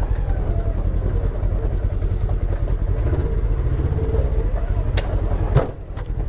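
Polaris side-by-side UTV engine running at low speed, a steady low rumble as it crawls over a rocky trail. A sharp click comes about five seconds in and a heavier knock just after, and then the engine sound briefly drops away.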